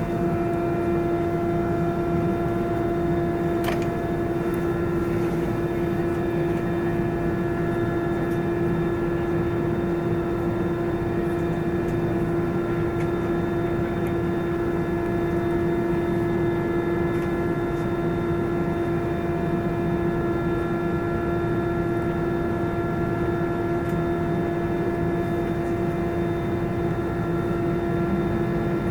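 Airbus A320 engines running with a steady hum: one constant tone with its overtones over an even low rumble. The level holds flat throughout, with no takeoff spool-up.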